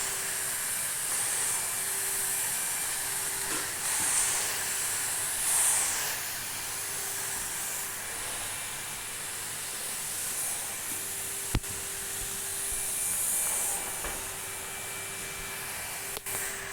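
Numatic NRV tub vacuum cleaner running, a steady motor whine over the rushing hiss of its suction. The hiss swells a couple of times in the first half as the nozzle is worked, with a sharp knock about halfway through and another near the end.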